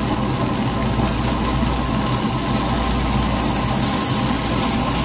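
Whole prawns sizzling in a pan of bubbling butter over a gas burner, with a steady low mechanical hum underneath.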